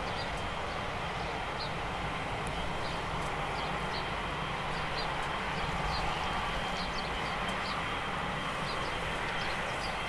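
Boeing 777's twin jet engines at idle, a steady rumble and hiss as the airliner taxis slowly. Faint short high chirps sound a couple of times a second throughout.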